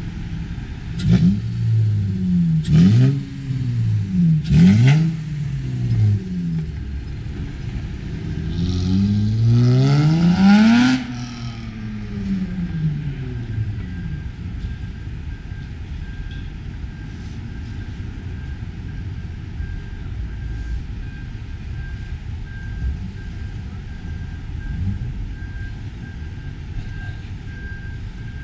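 Cars driving past on a city street, each engine's pitch sliding up and down as it goes by: several pass in the first six seconds, then a louder one rises in pitch and cuts off abruptly about eleven seconds in. After that a steady, quieter traffic hum remains, with faint repeated beeping in the second half.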